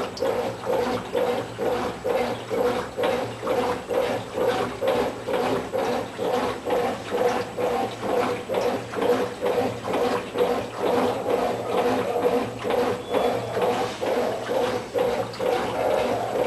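Brastemp Tira-Manchas 9 kg top-load washing machine agitating its wash water: a steady motor hum under a regular swishing beat, about one and a half to two strokes a second.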